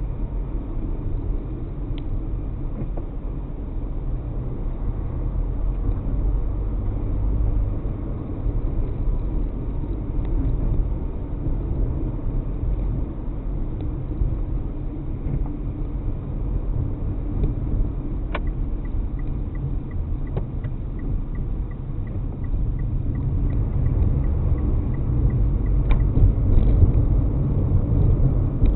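A car driving on city streets: a steady low rumble of engine and road noise. For several seconds past the middle, a faint, regular ticking comes in at about three ticks a second, with a few sharp clicks.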